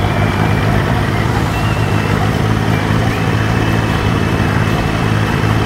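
Johnson GT 150 two-stroke V6 outboard running steadily at idle in neutral, lower unit in the water, after a carburetor rebuild; the owner says it is still misfiring.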